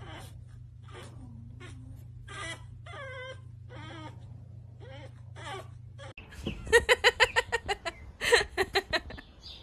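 Pug puppy whining and whimpering in short, wavering cries over a steady low hum. After a cut about six seconds in, the hum stops and a quick run of loud, rapidly repeated calls follows.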